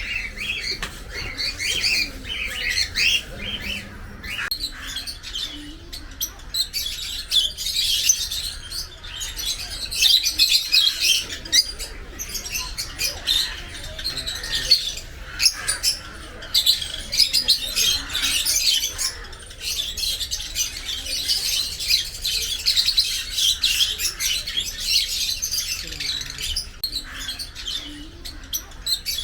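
A large number of small birds chirping and calling at once, a dense unbroken chatter of short high calls with no pause.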